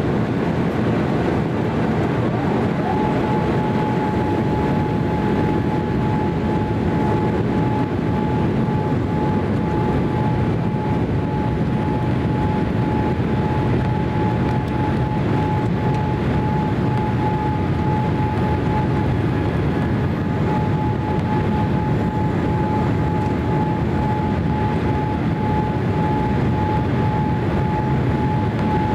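Steady in-flight cabin noise of a Boeing 787-8: a constant rush of airflow and engine noise from its Rolls-Royce Trent 1000s, with a steady high whine that comes in about three seconds in and holds.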